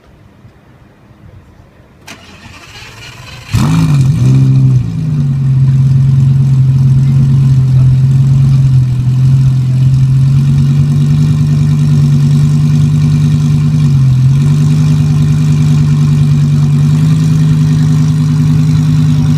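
Lamborghini Gallardo V10 starting through a straight, catless Fabspeed exhaust: after a short crank about three seconds in, the engine catches loudly with a brief flare of revs, then settles into a loud, steady idle.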